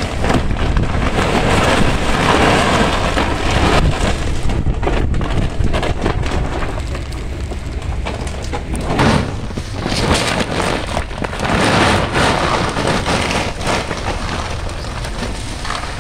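Masses of fresh red chili peppers pouring out of a sack onto a heap, a dense rustling patter like heavy rain that swells and eases, with a steady low rumble underneath.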